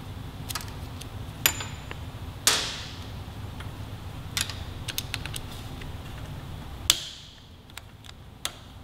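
Sharp metallic clicks and clinks of hand tools and small fasteners being handled as bolts come out of a motorcycle throttle-cable bracket. Two louder clinks, about two and a half and seven seconds in, ring briefly. A low steady hum underneath stops about seven seconds in.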